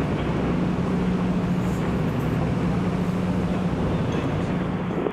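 Passenger train running, heard from inside the carriage: a steady low rumble with a constant hum.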